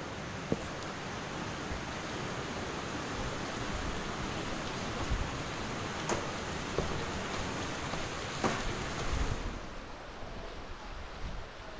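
Steady rushing water, an even hiss that thins out about nine and a half seconds in, with a few faint knocks.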